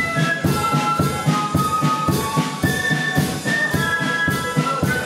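A flute band playing: massed small flutes carry a melody in steady held notes over a regular side-drum beat.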